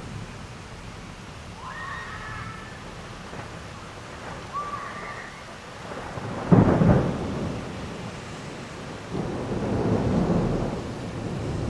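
Heavy rain falling steadily during a thunderstorm, with a loud, sudden thunderclap about halfway through that rolls off into rumbling, and a second swell of thunder rumbling near the end. Two short high chirps sound in the first half.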